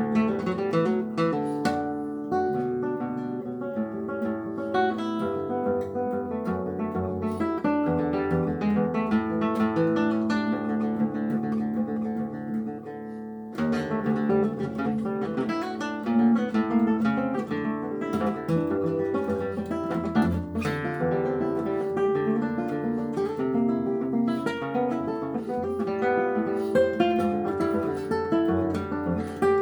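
Acoustic guitar playing a fingerpicked piece of plucked notes and chords, with a brief quieter moment about halfway through.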